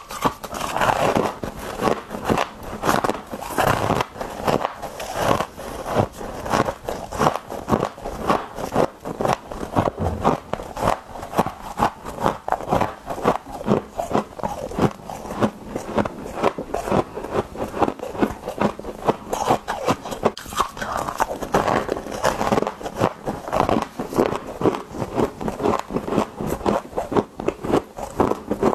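Someone biting and chewing packed deep-freezer frost: a continuous run of rapid, crisp crunches, several a second, picked up close by a lapel microphone.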